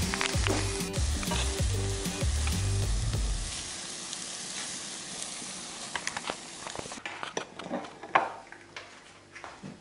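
Eggs with garlic scapes sizzling in a frying pan on a switched-off but still hot stove, the sizzle fading out after about three seconds. Then a run of sharp clicks and scrapes as the food is served from the pan onto plates.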